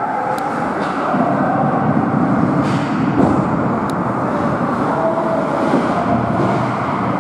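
Ice hockey game sound in an indoor rink: a steady rumble of the arena, with two sharp clicks of stick on puck, one near the start and one about four seconds in.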